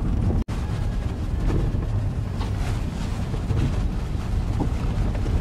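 Road noise heard from inside a vehicle driving a rough dirt road: a steady low rumble of tyres and engine, with scattered short rattles and knocks from the bumps.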